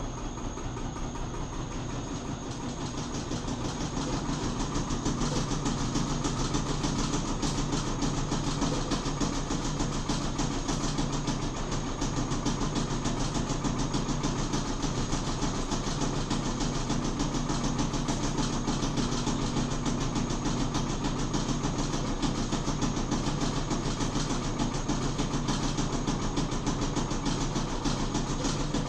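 Washing machine drum spinning up: a motor hum that grows louder over the first few seconds and then holds steady, with a fast continuous rattle over it. The rattle is taken for something loose inside the machine.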